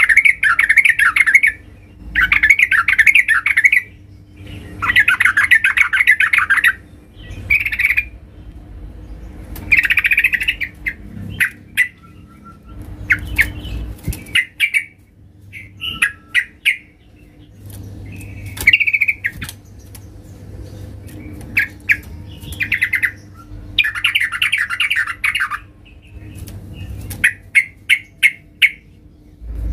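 Yellow-vented bulbul calling loudly, the 'gacor' challenge song of a bird looking for a rival: bubbly chattering phrases of a second or two, separated by short sharp chips, ending in a quick run of chips.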